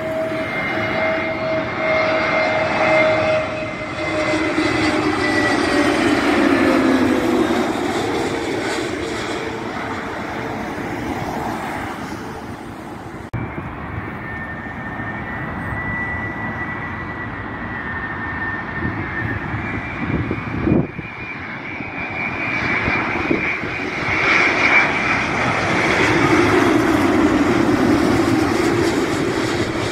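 Jet airliners on landing approach passing low overhead. First an Airbus A320neo's engines, whose whine falls in pitch as it goes by. Then, after a sudden cut about 13 seconds in, a Boeing 787-9 Dreamliner's Rolls-Royce Trent 1000 engines grow louder as it comes nearer, with a brief knock a little past the middle.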